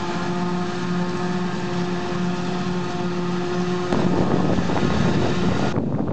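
Tractor and forage harvester running steadily under load while chopping maize, a continuous engine drone with a steady whine. About four seconds in the sound switches abruptly to a rougher, louder rumble, and just before the end it drops away to wind noise on the microphone.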